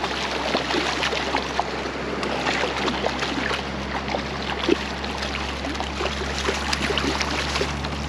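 Hooked trout thrashing and splashing at the surface of a creek, a run of short splashes over the steady rush of flowing water, with one louder sharp splash about halfway through.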